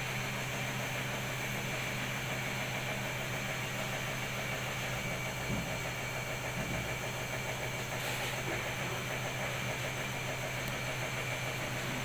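Von VALW-09FXX 9 kg front-loading washing machine running a spin cycle: a steady motor hum with a thin high whine over a hiss, and a couple of soft low thumps about midway.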